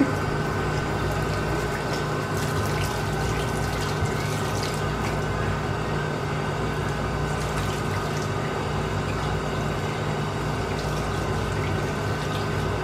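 Colon hydrotherapy machine running with water flowing steadily through it, a constant hum under the water noise.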